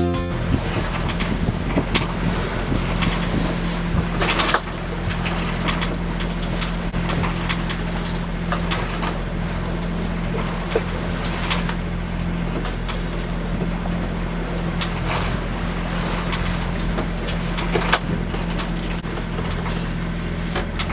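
A boat under way at sea: a steady low hum with wind and water rushing, broken by a couple of brief knocks.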